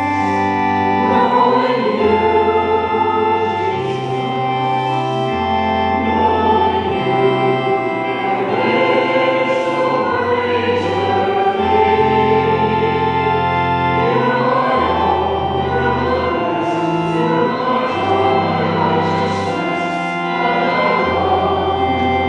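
A hymn sung by many voices to organ accompaniment, the organ holding low bass notes that change every second or two.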